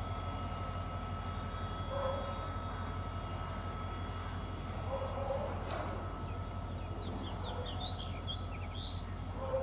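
Steady low background hum with a bird chirping several times about seven to nine seconds in, and faint distant voices now and then.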